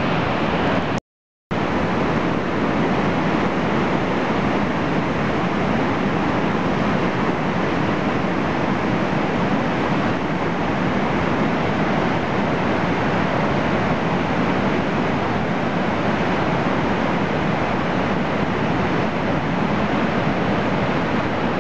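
Lava Falls, a big Colorado River rapid running at about 16,600 cfs, gives a steady, loud rush of whitewater. The sound cuts out completely for about half a second roughly a second in, then comes back unchanged.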